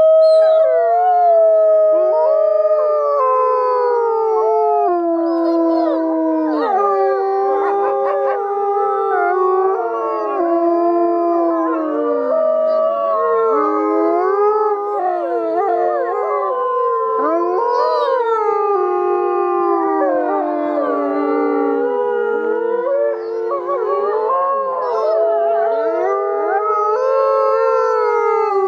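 A pack of gray wolves howling in chorus: several overlapping howls at different pitches, each gliding slowly up and down, with no break.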